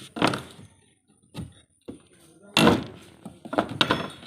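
A series of irregular knocks and thuds, about half a dozen, the loudest about two and a half seconds in and a quick cluster near the end.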